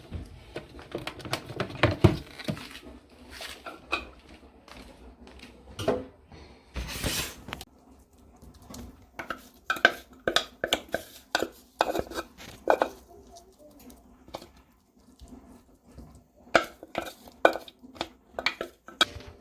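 Kitchen utensils clinking, knocking and scraping against dishes and containers in irregular short strokes, with a brief scrape about seven seconds in.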